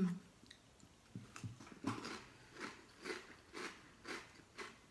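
Crunchy Nova barbecue multigrain chips being chewed, a steady crunch about twice a second.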